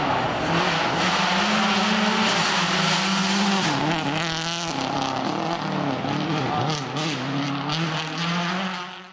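Subaru Impreza World Rally Car's turbocharged flat-four engine at full throttle as the car approaches and passes. The engine note holds steady, then dips and rises with gear changes and lifts from about four seconds in. A few sharp cracks come in the second half.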